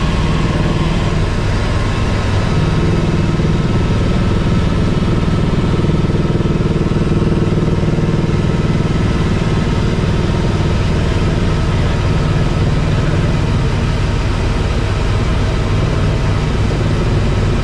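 Tour helicopter's turbine engine and rotors running, a steady, unbroken drone with a low hum.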